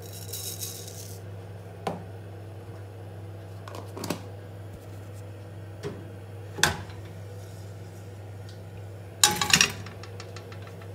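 Cumin seeds poured into hot mustard oil in a pressure cooker, with a brief hiss for about the first second. A few light knocks of kitchen handling follow over a steady low hum, with a louder clatter of pot-and-utensil knocks near the end.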